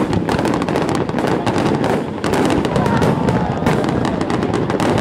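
A large aerial fireworks display heard at close range: a rapid, unbroken barrage of shell bursts and crackling.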